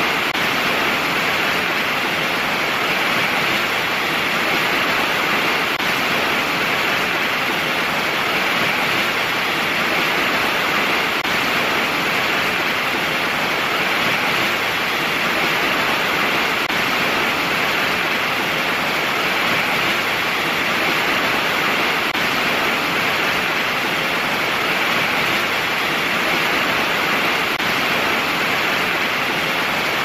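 Waterfall: a steady, unbroken rush of falling water, even in level throughout and brightest in its hissing upper range.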